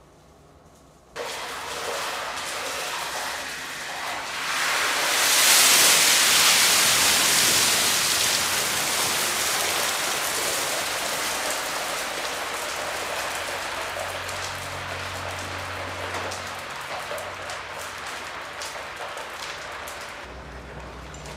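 Turkey fryer oil fire: after about a second of quiet, a sudden loud rush of burning cooking oil flaring up around the fryer pot, at its loudest about five seconds in, then slowly dying down to a crackling burn as the spilled oil burns on the deck floor.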